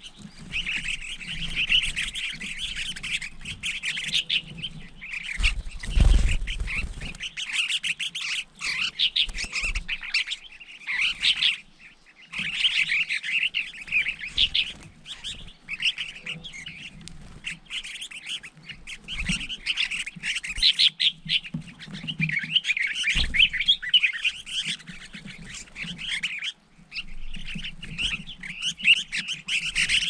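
A flock of finchbills chattering and calling with busy, overlapping chirps while feeding. A low thump about six seconds in and another around 23 seconds are knocks close to the microphone.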